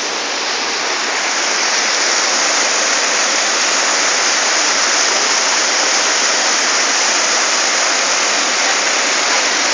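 Steady rush of water pouring over a small rocky waterfall cascade, growing a little louder over the first two seconds and then holding even.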